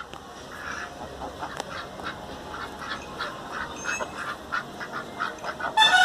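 White domestic ducks quacking in a steady run of short calls, with a louder, longer call near the end.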